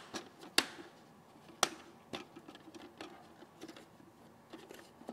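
Handling of a Biogents BG Pro mosquito trap's plastic trap body and tripod as the body is lifted off: two sharp clicks or knocks, about half a second and a second and a half in, then a few fainter taps.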